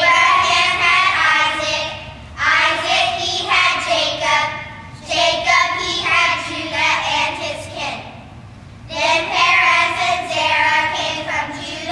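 A class of young children singing together in unison, in short phrases with brief pauses between them.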